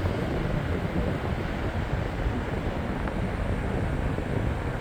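Vintage Capri PC-14 14-inch metal-bladed box fan running steadily on high speed, its airflow buffeting the microphone with a low, choppy wind rumble.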